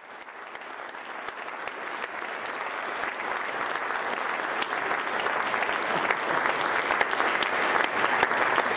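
Audience applauding, the clapping swelling steadily louder from a quiet start.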